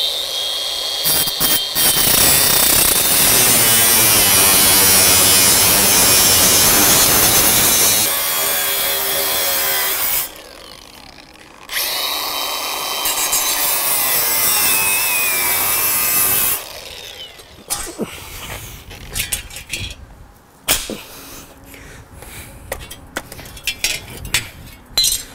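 Cordless angle grinder with a cutting disc slicing through a galvanised steel bracket. It makes two cuts, the first about ten seconds long and the second about five, with a short pause between. Afterwards come scattered light clinks and scrapes.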